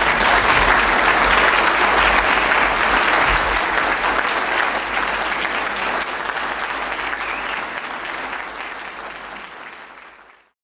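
Audience applauding steadily after a speech, then fading out over the last few seconds.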